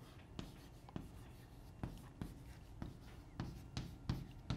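Chalk on a chalkboard writing a word: faint, quick taps and short scrapes, about two or three strokes a second.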